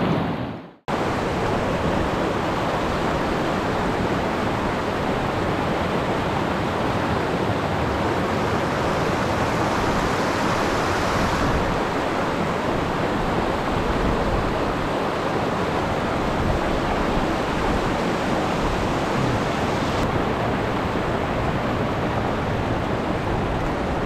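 Rushing mountain trout creek: a steady wash of water tumbling over rocks and small cascades, close by. It cuts out completely for a moment less than a second in.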